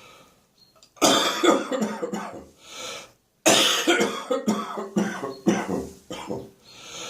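A person in a loud coughing fit: after a second of near quiet, two runs of rapid coughs, with a short pause between them and a long breath drawn in after each run.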